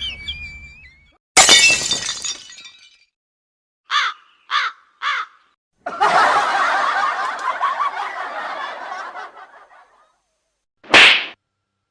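A string of separate comic sound effects. First comes a sudden crash that fades over about a second and a half. Three short pitched blips follow, then a longer warbling, noisy passage, and a short sharp burst near the end.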